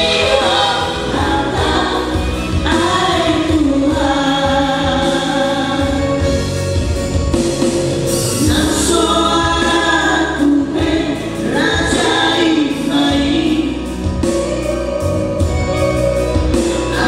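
Male vocal trio singing a Christian song in harmony into microphones.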